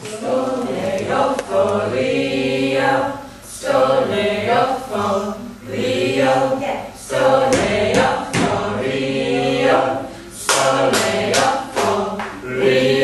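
A rehearsal group singing together unaccompanied, in phrases of a few seconds with short breaks between. A run of sharp hits comes in during the second half.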